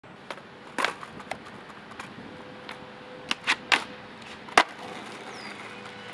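Skateboard clacking and knocking on pavement and a brick ledge: a scatter of sharp hits, the loudest about four and a half seconds in.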